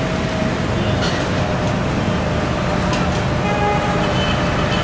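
Steady vehicle and street noise with a low rumble, and faint music over it from a loudspeaker.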